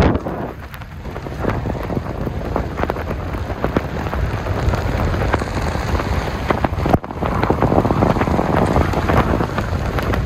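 Wind and tyre noise rushing in through an open window of a car driving on a snowy road, a loud steady rush with fine crackling from wind buffeting the microphone.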